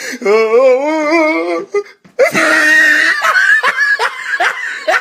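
A person laughing hysterically: a long, wavering high-pitched laugh, a short break about two seconds in, then a shrill laugh that breaks into rapid ha-ha bursts.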